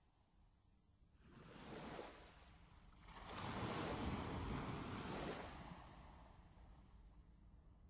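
Sea waves washing in on the shore. A small surge comes about a second and a half in, then a louder one from about three to five seconds that slowly dies away.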